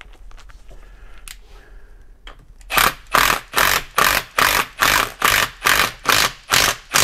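A cordless power tool driving a 13 mm bolt into a transfer case, run in about eleven short, evenly spaced bursts, a little over two a second, starting about two and a half seconds in.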